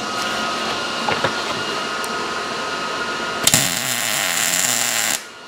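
MIG welder laying a weld on the steel quarter panel: a steady hiss that turns harsher and brighter about three and a half seconds in, then cuts off abruptly near the end as the trigger is released.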